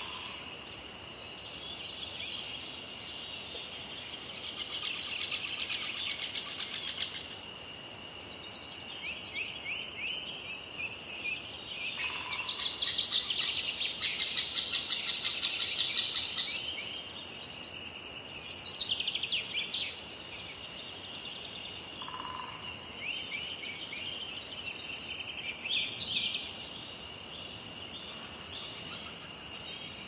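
Outdoor nature ambience: a steady high insect drone, like crickets, under repeated bird calls. The calls are short sweeping chirps. The loudest is a quick run of pulsed notes about halfway through.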